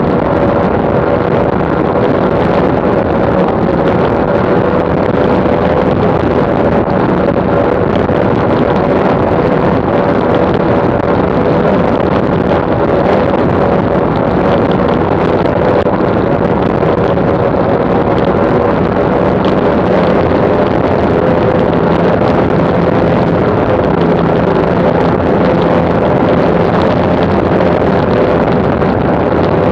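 Twin Mercury OptiMax 300XS two-stroke V6 outboards running steadily at high speed, around 110 km/h, with a constant engine tone over the rush of wind and spray.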